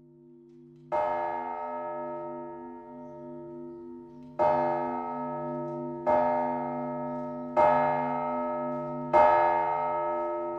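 A large church bell struck five times, the strokes coming closer together after the first, each one ringing on and slowly fading over a low steady hum.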